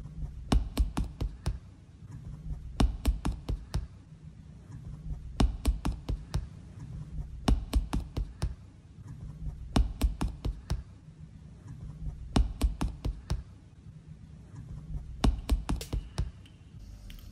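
A sneakered foot tapping on a hard floor in quick bursts of five or six taps, a burst about every two and a half seconds, over a low pulsing hum.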